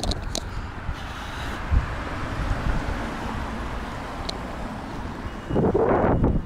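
Street traffic going by, with wind on the microphone and a louder swell of noise near the end.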